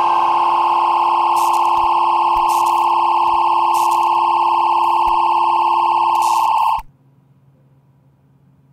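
A loud, steady, high-pitched electronic tone, like a dial tone or alarm, with a few irregular crackles through it. It cuts off suddenly near the end, leaving only a faint low hum.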